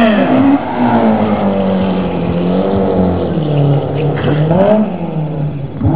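Rally car engine revving hard as it drives past. Its pitch sinks slowly, climbs sharply about four seconds in, then drops.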